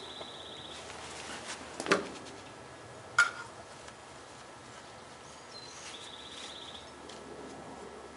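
Two sharp knocks about a second apart, the second with a short metallic ring: a hammer tapping the lid down onto a metal can of wood stain.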